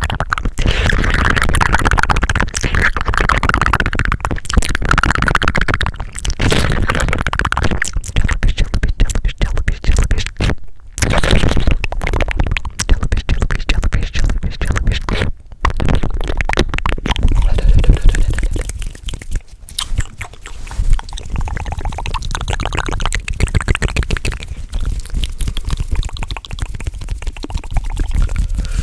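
Fast ASMR mouth sounds and hand sounds close to the microphone: a dense run of quick clicks and pops, broken briefly twice, about 11 and 15 seconds in.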